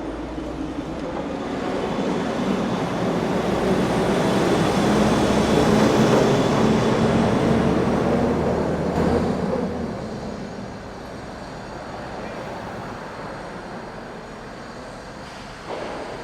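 Road traffic on an old city bridge: a steady rumble with one heavy vehicle passing, its engine hum swelling to a peak about six seconds in and fading by about ten seconds. A short knock near the end.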